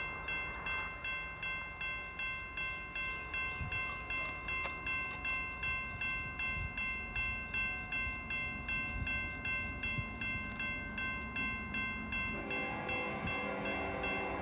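NEG electronic crossing bell on an activated railroad crossing signal, ringing at about two strikes a second with a bright, multi-pitched tone. It stops about twelve seconds in, and a steadier rough noise carries on after it.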